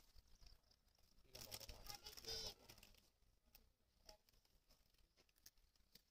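Near silence: faint outdoor room tone with scattered small ticks, and a brief faint rustling sound about a second and a half in.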